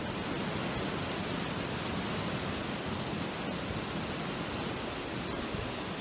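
Steady, even outdoor hiss with no distinct events in it.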